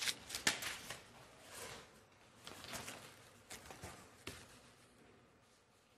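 Faint, irregular rustles and small clicks of papers being handled at a desk, thinning out after about four seconds.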